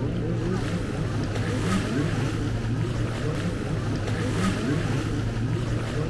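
Busy beach sound: a steady low engine drone over the sea, with surf and the murmur of many distant voices.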